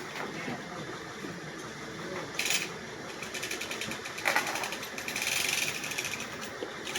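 Rapid ratcheting clicks from a workshop hoist as the Mazda engine is lowered out, with a thump and a sharp metal clank along the way.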